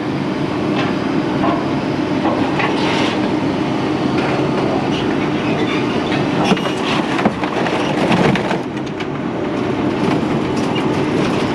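Steady mechanical running noise with repeated clanking and scraping of metal, typical of heavy scrapyard machinery handling scrap.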